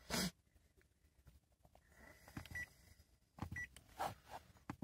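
Faint short high beeps from the Mitsubishi L200's instrument cluster, a second or so apart in the second half, as the odometer/trip button is pressed, with small clicks. A brief burst of rustling noise right at the start.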